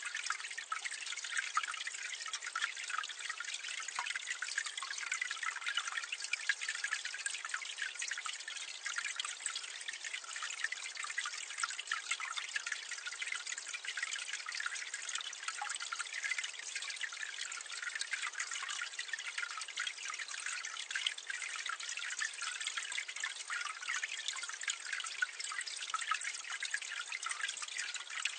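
Water running and splashing steadily down a drain, heard from a medium distance: an even, hissy splatter with fine droplet detail and no deep rumble.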